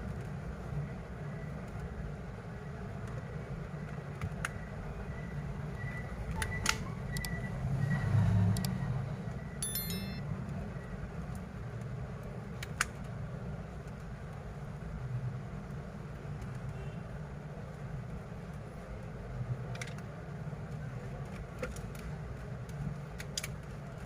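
Steady low background rumble, swelling briefly about a third of the way in, with scattered small sharp clicks and taps on top.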